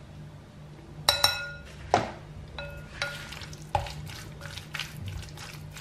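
A spoon knocking against a glass mixing bowl several times, the sharpest knocks leaving the glass ringing briefly, then a wooden spoon stirring diced raw escalope with its spices in the bowl.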